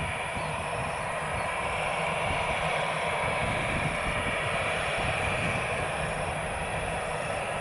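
Airbus A320-216's CFM56 jet engines running at low taxi thrust: a steady whine over an even rumbling hiss.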